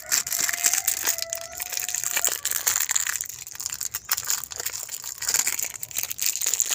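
Electrical tape being pulled off the roll and wrapped around a wire joint: a crackling, crinkling tear with a thin squeal through the first two seconds.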